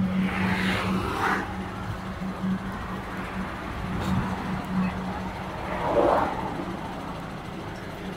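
Road traffic: a steady engine hum, with vehicles passing by about a second in and again about six seconds in.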